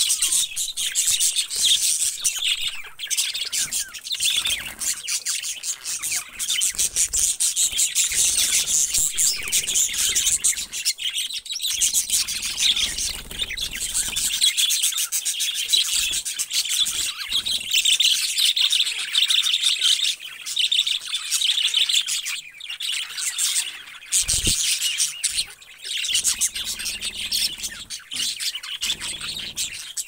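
A flock of budgerigars chattering and chirping without a break, many birds calling over one another.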